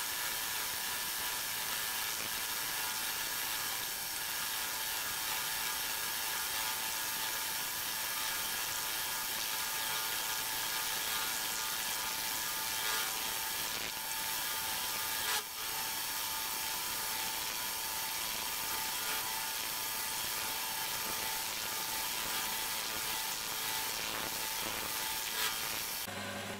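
Homemade lathe running as a milling machine, its chuck-held end mill cutting into a steel block on the cross slide: a steady scraping cutting noise over a steady whine, with a single sharp click about fifteen seconds in.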